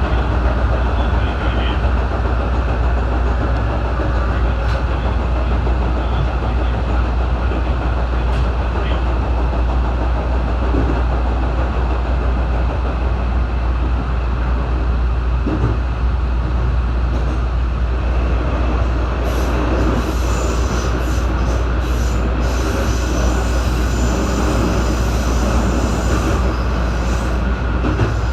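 JR West 221 series electric train running, heard from its motor car: a steady rumble and low hum, with thin high-pitched tones in the second half.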